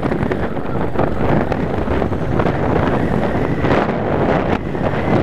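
Wind rushing over the microphone on a moving Yamaha Wild Star cruiser motorcycle, steady throughout, with the bike's V-twin engine running underneath.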